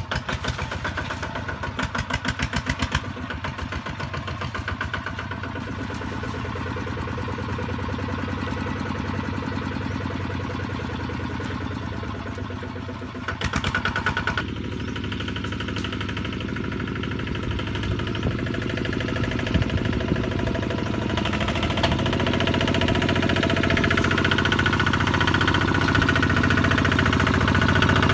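Kubota two-wheel walking tractor's single-cylinder diesel engine running steadily as it pulls a wooden trailer, getting louder as it approaches. A brief louder patch comes about halfway through.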